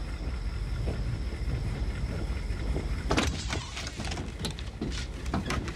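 Drama soundtrack: a steady low rumble with a faint high steady tone that stops about three seconds in. From then on comes a run of sharp clicks and knocks.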